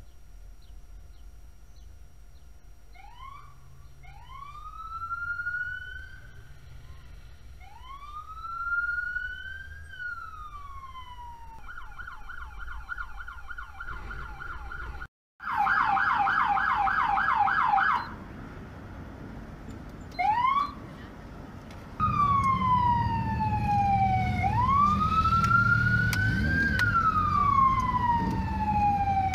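American police car's electronic siren cycling through its tones: slow rising-and-falling wails, then a fast warbling yelp, then long wails again, with a short whoop between. Engine and road rumble sit under the later wails, and the sound drops out for a moment near the middle.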